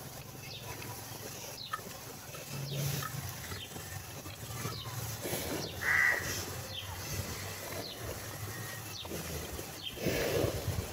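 Cattle and a buffalo munching fodder at a feed trough, with irregular crunching strokes and a louder rustle near the end. Short falling bird chirps sound throughout, one louder call about six seconds in, over a low steady hum.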